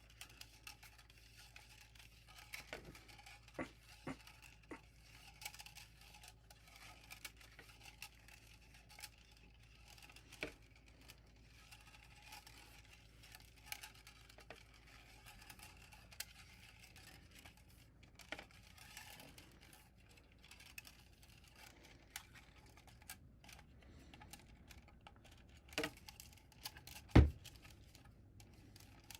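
Scattered light plastic clicks and rustling as 3D printer filament is wound onto an empty spool, with one sharp knock near the end.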